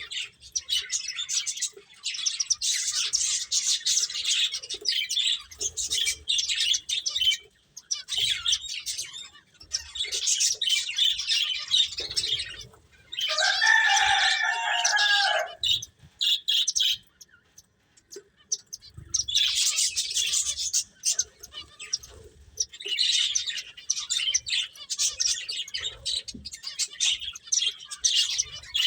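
Pet finches chirping in rapid, high-pitched twittering bouts broken by short pauses. About halfway through, a louder and lower call lasting two to three seconds stands out over the twittering.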